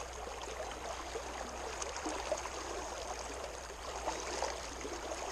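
Steady rush of flowing creek water from a trout stream running high.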